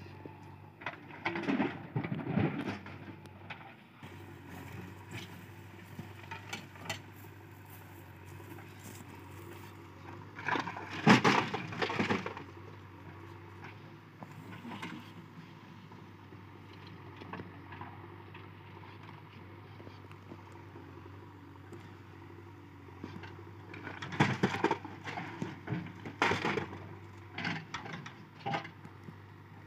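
Broken rock and rubble crashing and clattering in a JCB 3DX backhoe bucket as it scoops and dumps into a tractor trailer. The clattering comes in three bouts, about a second in, loudest around eleven seconds in, and again from about twenty-four seconds in, over a low steady engine drone.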